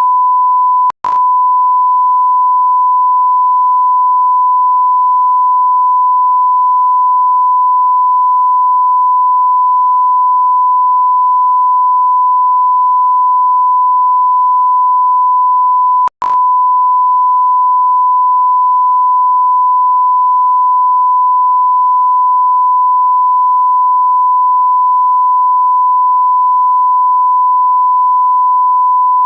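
A continuous electronic beep tone at about 1 kHz, a pure sine tone like a censor bleep, held at one steady pitch. It breaks off for an instant with a click about a second in and again about sixteen seconds in, then carries on unchanged.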